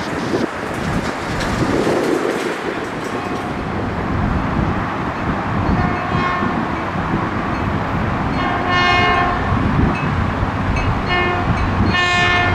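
Caltrain diesel locomotive's air horn sounding several blasts as the train approaches, the longest and loudest about two-thirds of the way through, over a steady low rumble of rail cars.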